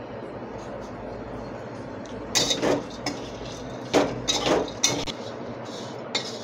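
A spatula stirring and scraping grated dry coconut around a metal kadhai as it roasts in a little oil: several short scrapes, the first about two seconds in, over a steady low background noise.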